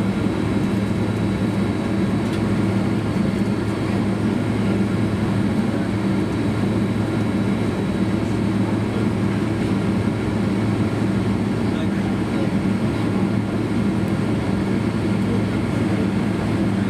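Steady cabin noise inside a Boeing 767-300 airliner on the ground in rain: an even low engine hum under a constant rushing noise.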